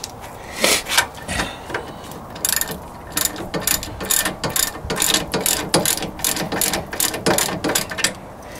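Hand ratchet wrench clicking as a brake assembly mounting bolt is tightened down: a few separate clicks at first, then quick runs of ratcheting strokes from about two and a half seconds in until near the end.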